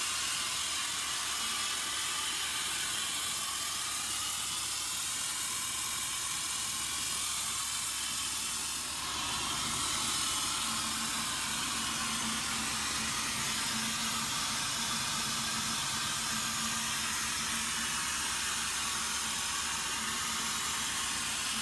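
Cement tanker's pneumatic unloading system running: a steady rushing hiss of compressed air carrying cement through the rubber discharge hose, driven by an oil-free compressor. About halfway through, a low steady hum joins in.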